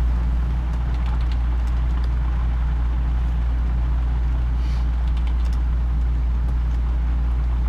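A steady low hum, with a few faint clicks about one second and about five seconds in.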